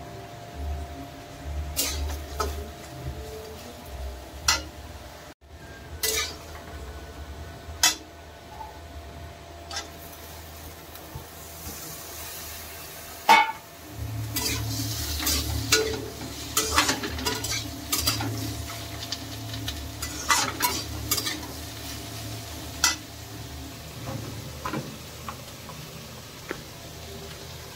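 Food frying in a pan with a light sizzle, as a metal spatula stirs and knocks against the pan in scattered sharp clicks. A low hum joins about halfway through, and the clatter grows busier from then on.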